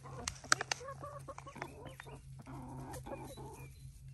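A flock of hens clucking softly and intermittently while foraging, with a few sharp clicks near the start, the loudest about half a second in.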